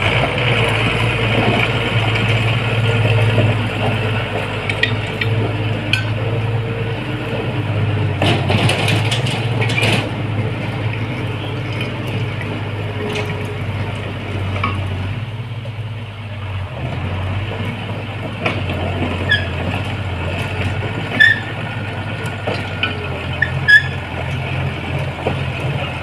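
Komatsu D31P-18 crawler bulldozer's diesel engine running under load as the machine tracks across dirt, with short squeaks and clicks from the moving machine. The engine note eases for a moment about two-thirds of the way through, and two sharp knocks stand out near the end.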